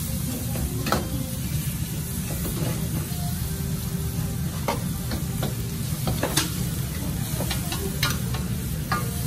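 Metal ladle scraping and clanking against a wok in irregular strokes while a stir-fry is tossed over a gas wok burner. The burner runs steadily and the food sizzles underneath.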